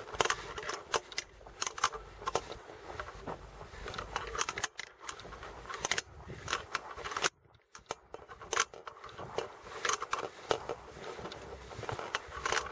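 Irregular rustling and clicking of a handheld camera and light being carried while walking on grass. The sound cuts out for about half a second a little after seven seconds in.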